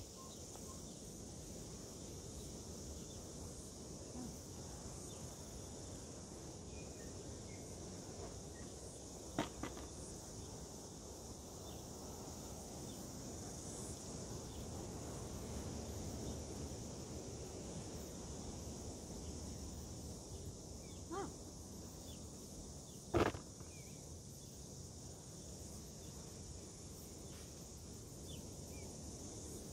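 Steady high insect chorus in grassy orchard surroundings, broken by three short knocks, the loudest about two-thirds of the way through.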